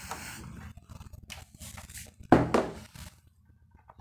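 Scattered light clicks and knocks of things being handled at a whiteboard, with one louder short thump about two and a half seconds in.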